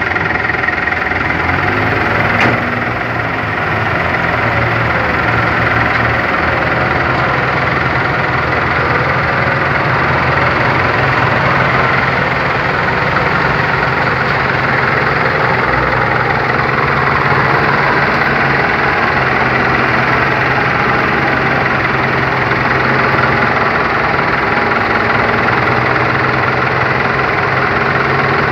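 Several diesel tractor engines running steadily under heavy load, hauling a loaded trailer through deep mud.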